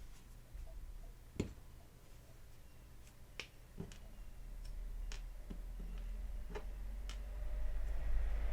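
Scattered light clicks and taps, about seven spread over a few seconds, from small plastic and rubber toy-car parts being handled, with a low hum underneath that grows louder near the end.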